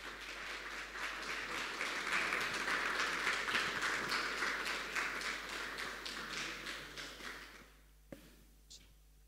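Audience applauding, swelling over the first two seconds and dying away about eight seconds in; two faint knocks follow near the end.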